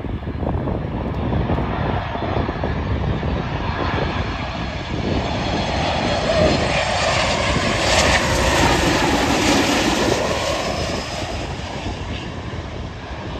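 Ryanair Boeing 737 on final approach with its two jet engines running at landing power, the rushing jet noise swelling as it passes low overhead, loudest about eight seconds in, then fading as it descends toward the runway.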